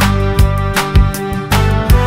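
Upbeat background music with a steady beat, bass and a plucked guitar-like melody.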